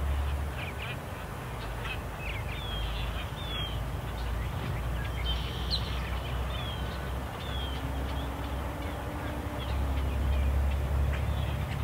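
Wild birds calling in the background: many short, high chirps and slurred notes with a few harsher calls, over a low rumble that swells near the end.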